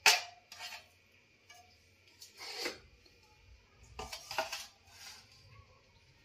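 Stainless steel plates and bowls clinking and knocking against each other and the counter as they are set down and moved, with one sharp clink right at the start and several softer knocks after it.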